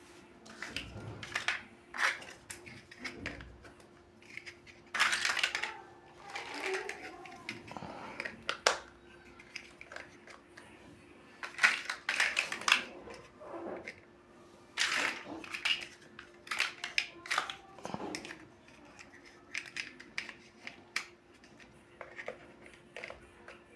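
Plastic building-block pieces clicking, rattling and snapping together as they are handled and pressed on, in irregular short clicks with a few longer rattles, over a faint steady hum.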